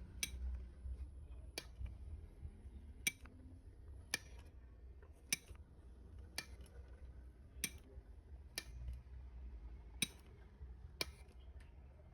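Faint, sharp clicks at about one a second, fairly regular, over a low steady hum.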